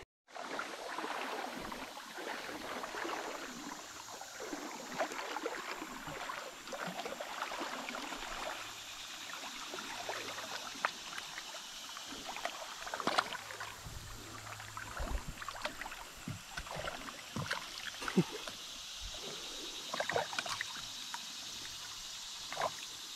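River water running and lapping around a kayak, with many short splashes and small knocks scattered throughout.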